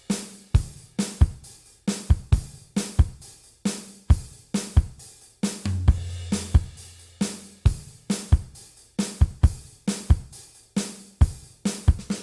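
Background music carried by a drum kit beat, with kick, snare and cymbal strikes at a steady pace and a held bass note about halfway through.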